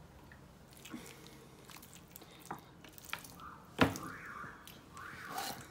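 A whole raw chicken being handled and turned over on a wooden cutting board: soft wet squishing and small clicks, with one sharp knock about four seconds in.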